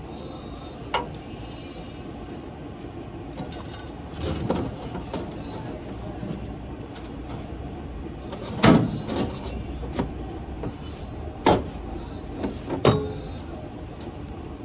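Metal knocks, clunks and scrapes of a blower assembly being slid and fitted into an air handler cabinet. There are several separate strikes, the loudest about nine seconds in, over a steady low background rumble.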